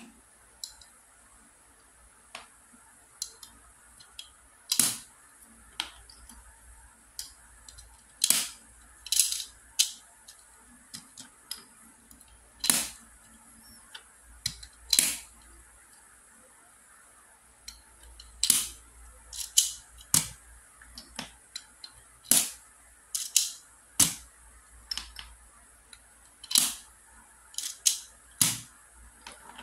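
Hard plastic cubes clacking against each other and against the YJ Tick Cage's black plastic frame as they are handled and slotted into the cage. The clicks come irregularly, a few seconds apart, some sharp and loud, others faint.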